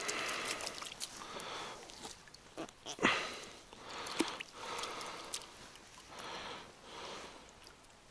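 A man breathing close to the microphone, one breath about every second, with a few sharp handling clicks and a louder knock about three seconds in.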